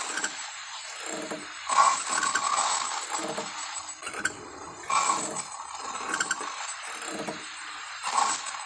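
Lion grunting in a steady series of short grunts, a little over one a second, with a few louder ones among them.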